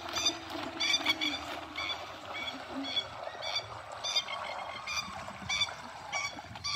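A plover calling over and over, short sharp high-pitched calls about two a second.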